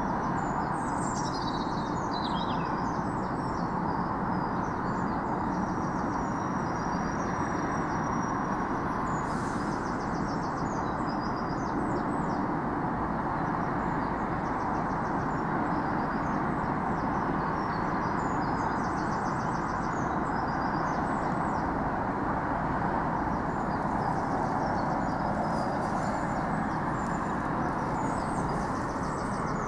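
A steady low drone that does not change, which the uploader documents as a disorientating low-frequency noise, with small birds chirping faintly over it throughout.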